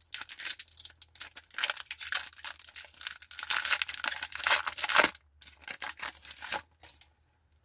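Foil wrapper of a Pokémon booster pack being torn open by hand: a crinkling tear that grows loudest about five seconds in and stops abruptly, followed by a few softer crinkles.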